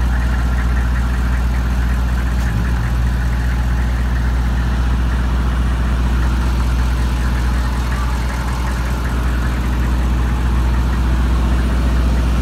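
Soft-serve ice cream truck idling, a steady low engine hum, with one short thump about two and a half seconds in.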